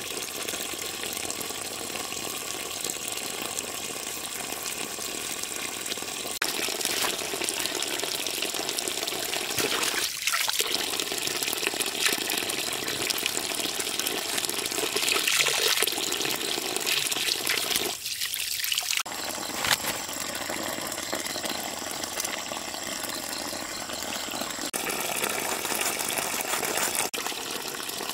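Water pouring steadily from the open end of a pipe and splashing onto the ground, with a knife blade being rinsed in the stream.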